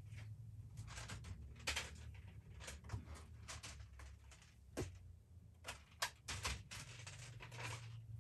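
Faint, scattered clicks and short rustles of plastic beads and their containers being handled and sorted, over a low steady hum.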